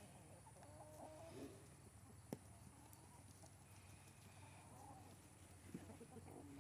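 Chickens in a flock clucking softly, a few short calls here and there, with one sharp click a little over two seconds in.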